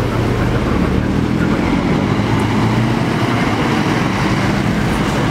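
Scania K410iB coach's 13-litre six-cylinder diesel engine running steadily as the bus drives past, a low drone, mixed with passing motorcycle and car traffic.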